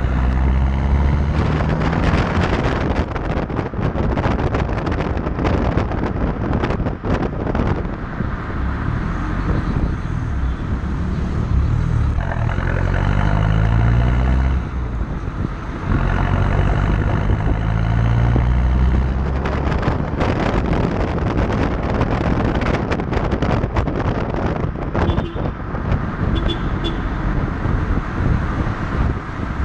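Ford Aspire's four-cylinder TDCi turbodiesel heard at the tailpipe of its partial free-flow exhaust while the car is driven. The diesel note rises in pitch a couple of times around the middle as the engine accelerates, under heavy wind and road noise on the microphone.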